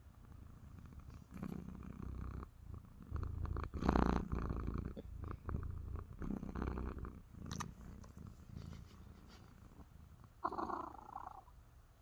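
Domestic cat purring, a low rumble that swells and fades in waves with its breathing, about every two and a half seconds. A short higher sound breaks in near the end.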